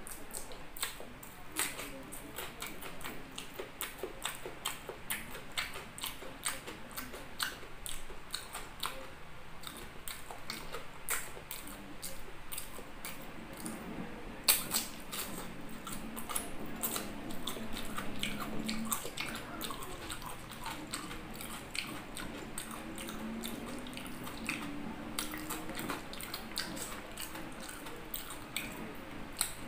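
Close-up eating sounds of a man eating by hand: chewing and wet mouth clicks and smacks from a stream of small, sharp sounds. About halfway through there is one louder, crisp bite as he bites into a piece of raw white onion.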